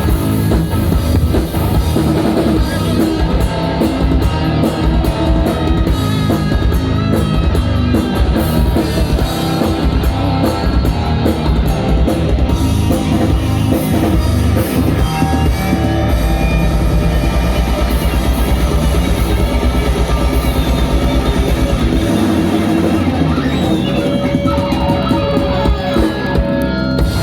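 Rock band playing live, an instrumental passage without singing: electric guitars, bass and drum kit, with a long held low bass note about two-thirds of the way through.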